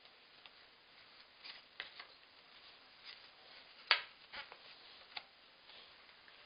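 Cardboard jigsaw puzzle pieces being handled and pressed into a puzzle board on a wooden table: a few scattered light clicks and taps, the sharpest about four seconds in.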